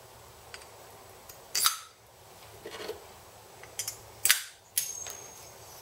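Handling noise from a Honda CT110 cylinder head on a workbench: a few sharp knocks and scrapes as the head is picked up and turned over. There is one loud knock about a second and a half in and two more close together past the middle, with lighter clicks between.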